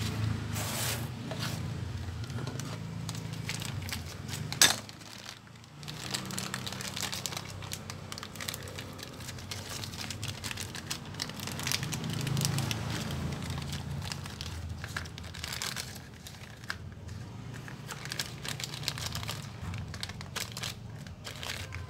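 Thin clear plastic bag crinkling and rustling as it is handled and opened by hand, with one sharp click about five seconds in.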